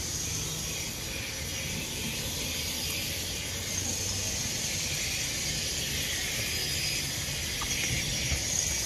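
Light drizzle falling steadily on leaves and wet pavement, a constant even hiss.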